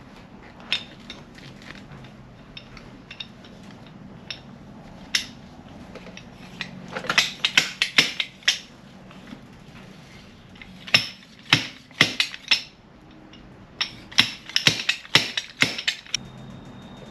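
Fork seal driver knocking a new fork seal down into a 2017 Indian Scout's fork tube: quick runs of sharp knocks in three bursts, with a few single taps before them, until the seal is seated in its groove.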